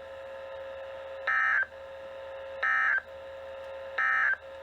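Emergency Alert System end-of-message signal: three short bursts of buzzy data tones, about a second apart, marking the end of the broadcast tornado watch. A faint steady tone hums underneath.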